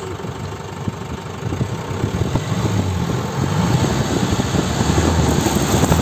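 Vehicle engine running close to its exhaust pipe, rising in speed about a second and a half in and held there as it is revved.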